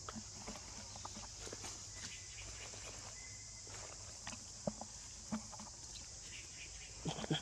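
Quiet outdoor ambience with a steady high hiss, and scattered light taps and scuffs of small macaques scrambling on tree bark. A louder sound starts right at the end.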